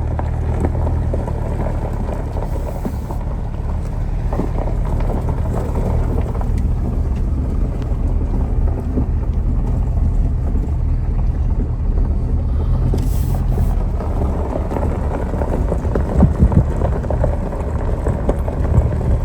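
Chevrolet Colorado pickup being driven, a steady low engine and road rumble, with a few louder bumps near the end.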